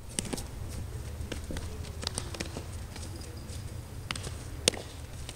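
Sharp knocks of baseballs being hit and caught in infield drills, one loud crack about four and a half seconds in and several lighter pops, over a steady low rumble.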